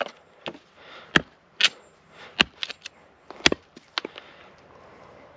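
Condor Lobo machete chopping into a birch branch: a series of sharp chops roughly once a second, the hardest about a second in, midway and about three and a half seconds in, with lighter knocks between. The freshly sharpened blade is biting well into the soft wood.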